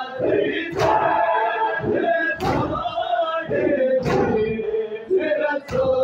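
Crowd of men chanting a noha, the Shia mourning lament, while striking their chests in unison in matam: a sharp slap of hands on chests about every one and a half seconds, four times.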